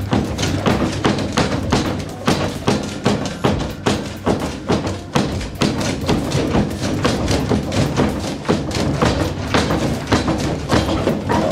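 Background music with a steady, percussive beat.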